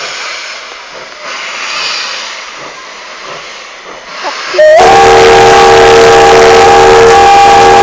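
An old steam locomotive's whistle starts suddenly about four and a half seconds in, very loud, a steady chord of several tones held without a break.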